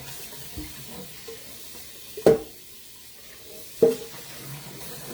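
Two sharp metallic clanks with a short ring, about a second and a half apart, from a metal steamer pot being handled, over a steady hiss.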